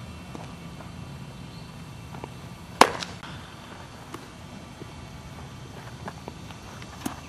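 A single sharp crack of a baseball impact, a little under three seconds in, followed by a few fainter knocks, over a steady low background noise.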